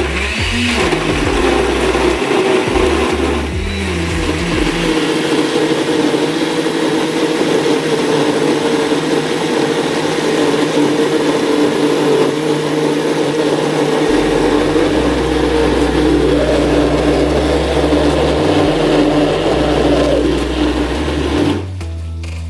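Countertop blender running steadily, blending frozen raspberries and cherries with water, then switched off suddenly near the end.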